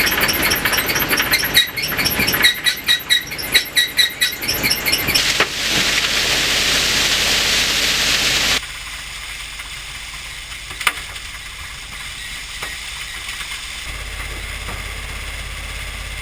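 Gravel plant machinery running: a loaded belt conveyor with rhythmic squeaks and clinks at first, then a steady rush of gravel pouring off the conveyor's head drum. After about eight seconds this gives way to a quieter, steady machine hum with a sharp click or two.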